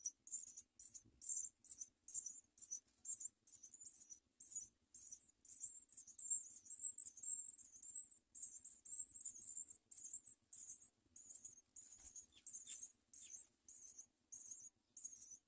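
House sparrow nestlings begging: thin, high-pitched cheeps repeated two to three times a second, at times running together, with a few lower, falling notes about twelve seconds in.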